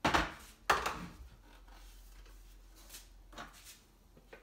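Two sharp knocks of plastic food containers being set down on a kitchen counter, followed by softer scraping of a spatula inside a stainless steel Thermomix mixing bowl.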